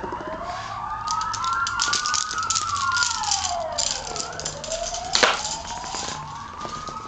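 A siren wailing, slowly rising and falling in pitch, with clicking and rattling over it and a sharp knock about five seconds in.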